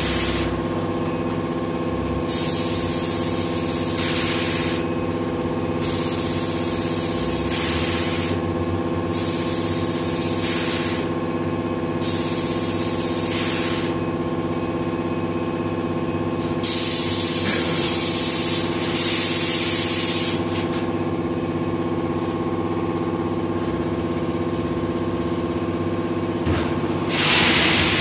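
Concrete batching plant machinery running: a steady hum of motors with several tones. Over it come hissing rushes about two seconds long that switch on and off every few seconds, with a longer one a little past the middle and another starting near the end.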